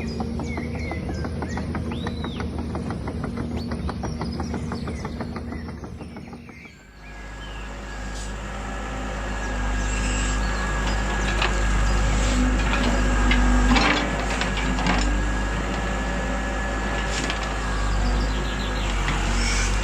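Toy RC excavator's electric motors and gears whirring as it works, with birds chirping over a steady ticking for the first few seconds. About seven seconds in, the sound cuts to a louder steady whine over a deep hum, with scattered clicks and knocks.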